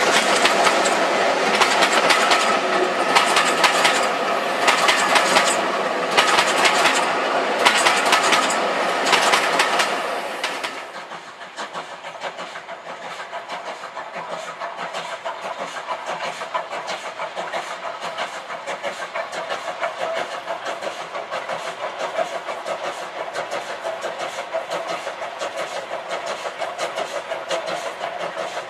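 Railway coaches running past close by, the wheels clicking over rail joints about once a second. About ten seconds in it switches to a steam locomotive working a goods train further off, much quieter, with a steady rapid beat of its exhaust.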